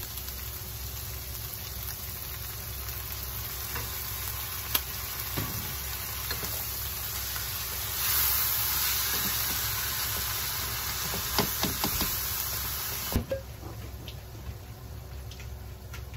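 Bean sprouts and ground meat sizzling in a nonstick frying pan while they are stir-fried with a wooden spatula. The sizzle grows louder about halfway through, a few sharp knocks of the spatula against the pan follow, and the sizzle drops off near the end.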